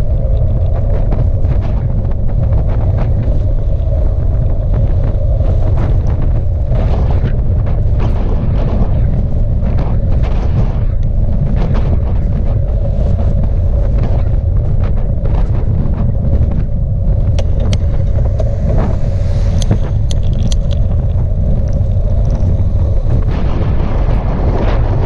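Wind buffeting the microphone of a bicycle-mounted camera while riding at speed: a steady, loud low rumble, with a constant hum and scattered small knocks from the bike running over the road.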